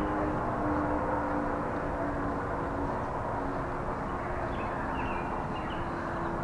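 Town outdoor warning siren sounding a steady, even tone that slowly fades.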